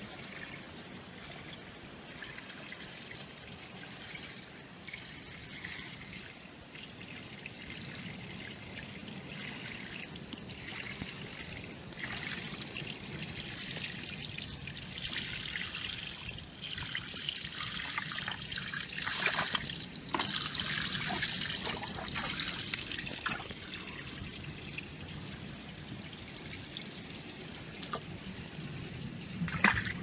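Water trickling and washing among shoreline rocks, growing louder midway, with a few light knocks and one sharp knock near the end.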